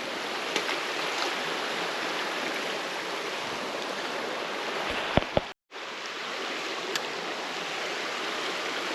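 Creek water flowing steadily. A couple of low thumps about five seconds in, then the sound drops out for a moment.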